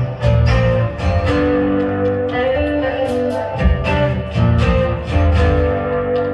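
Live contra dance band playing a lively instrumental tune, with a running bass line and strummed and plucked strings.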